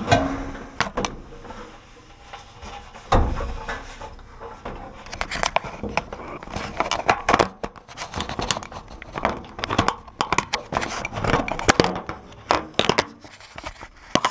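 Hands and a handheld camera knocking and scraping against the sheet-metal parts inside a dryer cabinet: an irregular string of sharp clicks and knocks, with a louder knock about three seconds in.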